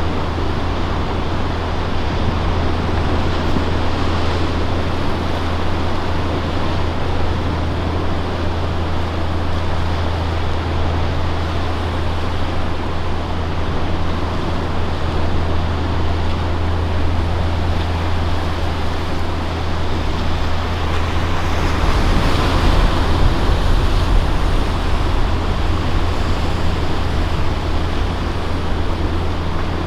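A steady low engine hum over a continuous wash of surf and wind noise; about two-thirds of the way through, the hum turns rougher and the noise grows a little louder.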